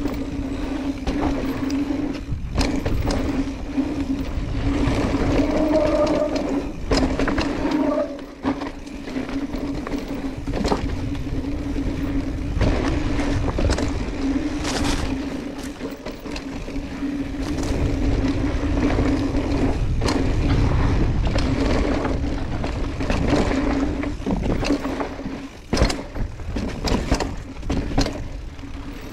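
Mountain bike descending a rough, technical trail: tyres rumbling over dirt and rock, with frequent sharp knocks and rattles from the bike over bumps and a steady buzz beneath, along with wind noise on the microphone.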